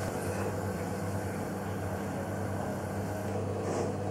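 Steady low electrical hum with a faint even hiss while a buttered sandwich toasts in a flat pan on a glass-top electric cooktop.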